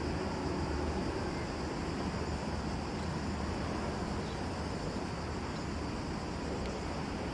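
Steady distant rumble of a Canadair water bomber's engines as it skims the sea scooping water, mixed with wind noise on the microphone.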